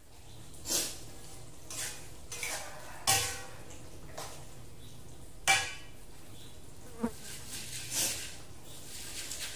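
Spatula clattering and scraping against a wok and a mortar during stir-frying, about seven separate knocks and scrapes, some with a short metallic ring, over a steady background hum.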